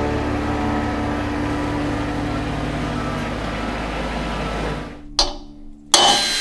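Compact tractor's engine running steadily as the tractor drives in, fading out about five seconds in. Near the end, a cordless drill starts up and runs.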